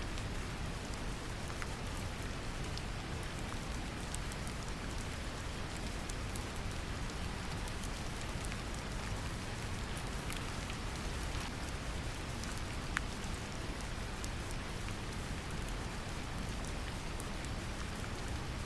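Steady deep brown noise mixed with gentle rain, the rain heard as scattered fine drop ticks over an even low rumble, with one slightly sharper drop about 13 seconds in.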